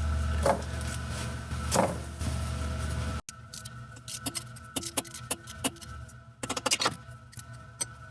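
Metal hand tools clicking and clinking on exhaust manifold bolts, over faint background music. A low hum stops abruptly about three seconds in.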